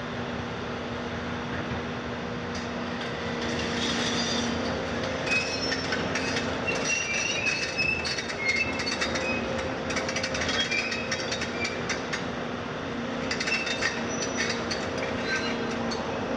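Volvo 250 crawler excavator running steadily while its steel tracks clank, click and squeal as it crawls over broken concrete rubble. The clanking and squealing start about two and a half seconds in, pause briefly after about twelve seconds, then pick up again.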